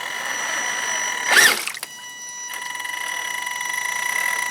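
High electric whine from a radio-controlled model's motor and speed controller, a steady tone with overtones. About a second and a half in, a brief louder surge rises and falls in pitch; the whine then drops away for a moment and returns.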